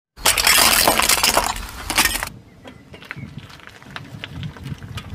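Car tyre rolling over small plastic toy gumball machines filled with water beads, crushing them: a loud crackling crunch for about two seconds, then a lower tyre rumble with scattered small clicks.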